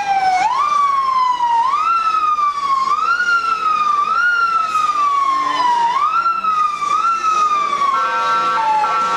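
Vehicle siren in a repeating cycle: each time it sweeps up quickly and glides down more slowly, about once a second. Near the end it gives way to a horn sounding a chord of steady tones in short blasts.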